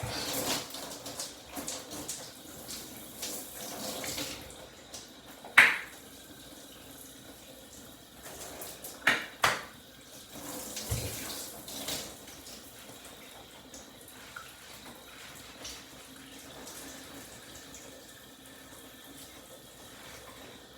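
Shower water running steadily, broken by a few short sharp noises: the loudest about five and a half seconds in, then two close together around nine seconds.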